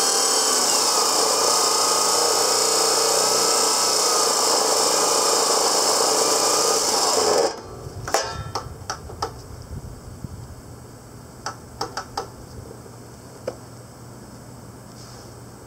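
DeWalt D28710 14-inch abrasive chop saw grinding through 1/8-inch-wall, 3-inch square steel tubing, with a loud steady grind and wavering whine. About seven and a half seconds in it stops abruptly mid-cut with the wheel still in the tube, which the owner links to an unchecked hot saw on a 15-amp breaker. A few light clicks and knocks follow.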